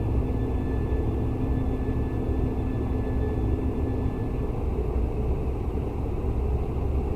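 Steady low rumble of a running vehicle, with a faint steady whine over it that fades out about four and a half seconds in.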